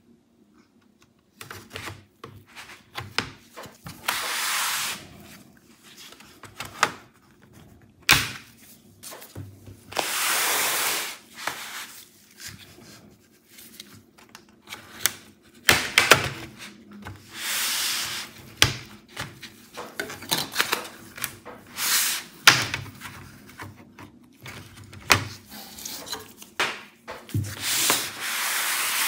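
A plastic pry tool scraping along the seam of an Acer Nitro V 16 laptop's plastic bottom cover, in repeated strokes about a second long, with sharp clicks as the cover's retaining clips pop loose.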